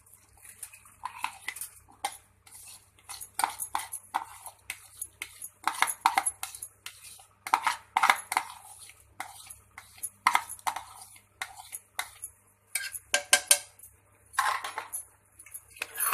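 A spoon clinking and scraping against metal pots as soaked rice is tipped into a pressure cooker of spiced soya chunks and stirred, in short irregular scrapes and knocks.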